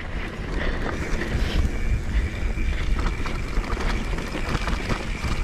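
Wind buffeting the action camera's microphone over a mountain bike's tyres rolling down a dirt singletrack, with small knocks and rattles from the bike over the bumps.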